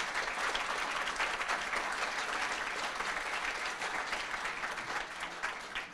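Audience applauding, a dense patter of many hands clapping that begins to thin out near the end.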